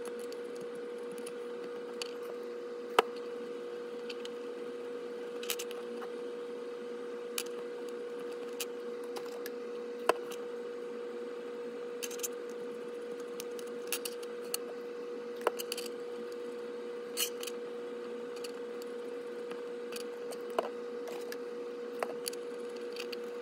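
Small handling noises of a model locomotive's metal wheelset being cleaned with a cotton swab: scattered light clicks and taps every second or two as it is turned in the fingers and set down on the desk. A steady hum runs underneath.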